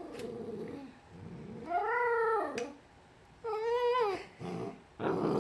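A domestic cat meowing: a raspy call at the start, then two long, drawn-out meows that rise and fall in pitch, about two and four seconds in.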